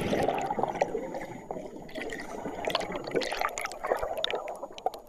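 Water gurgling and sloshing, with many small irregular drips and splashes.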